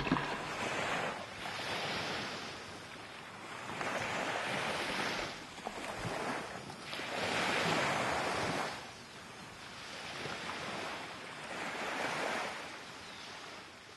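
Small waves washing onto a sandy shore, the surf hiss swelling and falling back about five times, every two to three seconds.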